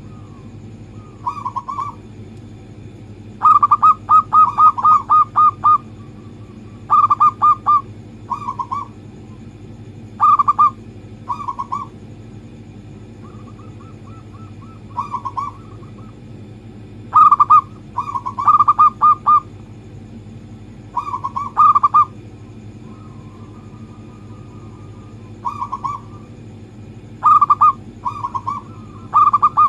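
Local zebra dove (perkutut) singing: phrases of quick, rolling coos repeated every one to three seconds with short pauses between, some phrases longer than others, over a faint steady low hum.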